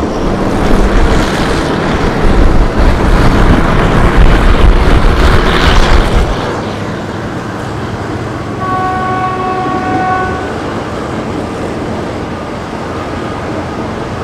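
Running noise of a moving passenger train: a loud low rumble and rush at an open carriage window, dropping to a quieter steady rumble inside the coach about six seconds in. About eight and a half seconds in, the locomotive's horn sounds one steady blast of several notes together, lasting about two seconds.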